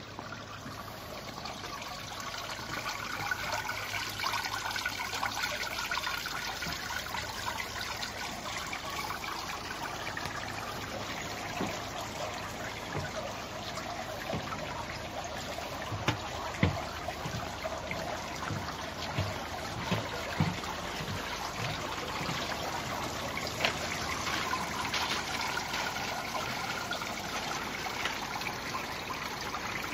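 Water running and splashing steadily in a small pool, with a cluster of short low knocks around the middle.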